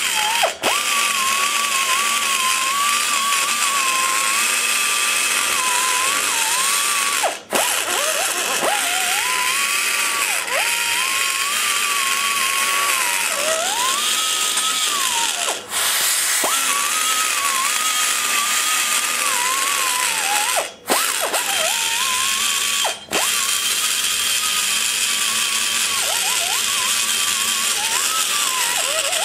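Die grinder running a small cutter into the aluminum of an LT-1 cylinder head port, reshaping around the valve guide. Its steady whine sags in pitch each time the cutter bites, then recovers. It cuts out briefly about five times.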